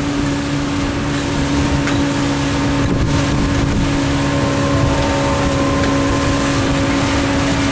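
Motorboat engine running steadily under way: a constant droning tone over a dense low rumble.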